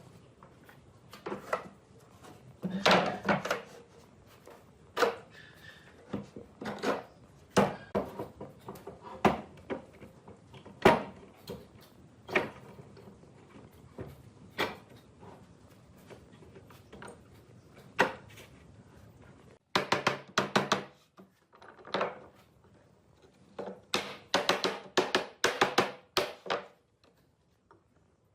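Irregular sharp knocks and thunks of wood being handled and struck, roughly one a second. From about two-thirds of the way in they come as quicker clusters of taps.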